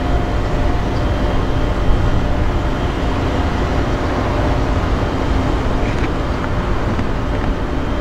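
Steady, even hum of a stopped GE ET44C4 diesel locomotive idling, under heavy low rumbling wind buffeting on the microphone.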